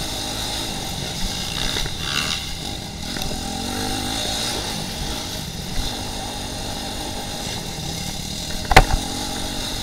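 Off-road dirt bike engine running under load, its pitch rising and falling with the throttle. A single sharp knock comes near the end.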